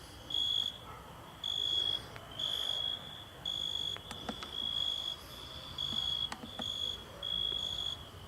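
Cricket chirping: a high, steady-pitched chirp repeating about once a second, with a few faint clicks about halfway through.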